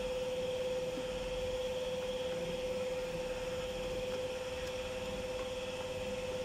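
A steady hum held on one unchanging mid-high note, over faint background noise.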